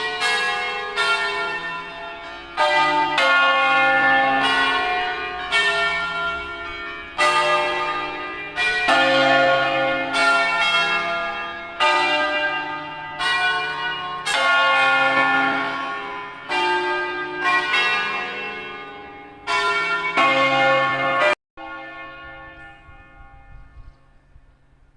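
Church bells ringing: several bells of different pitch struck one after another at an uneven pace, each stroke ringing on and overlapping the next. A little over three-quarters of the way through, the ringing breaks off abruptly and a fainter hum dies away.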